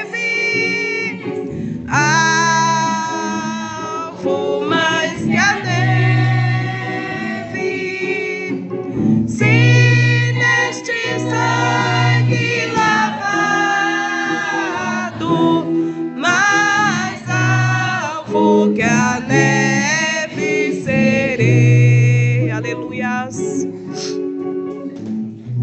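A woman singing a gospel song over instrumental accompaniment, in phrases of a few seconds each, with deep bass notes held under many of them.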